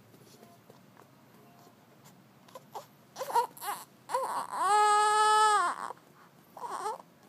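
Infant crying: a few short cries, then one long held cry of a little over a second just past the middle, and another short cry near the end.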